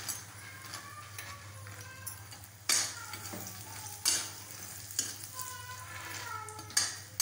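Puffed lotus seeds (makhana) sliding from a plate into a steel kadhai of hot ghee, with a light sizzle and stirring. There are three sharp metallic clatters against the pan, about three, four and seven seconds in.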